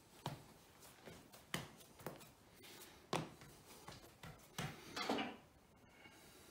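A hand pressing and patting a ball of egg pasta dough flat on a kitchen benchtop: about six irregular soft thumps and knocks with rubbing between them, a louder cluster of knocks near the end.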